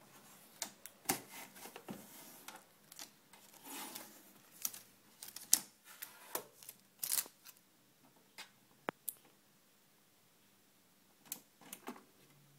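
Fingers tapping, clicking and rubbing on the case of a Sony CMT-FX300i micro hi-fi: irregular sharp clicks and knocks, busiest over the first seven seconds, with a short rubbing sound about four seconds in and a few more clicks near the end.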